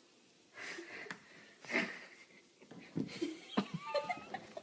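Faint breathy wheezing, then a fawn's hooves clicking and scrabbling as they slip on a hardwood floor, with a few short squeaky sounds near the end.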